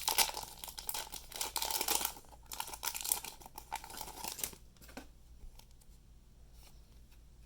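Foil booster pack wrapper being torn open and crinkled, a dense crackling that lasts about four and a half seconds, then only a few faint ticks.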